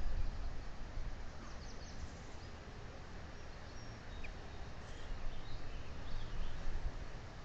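Wind buffeting the microphone in a low, uneven rumble, with a few faint, short, high bird chirps scattered through it.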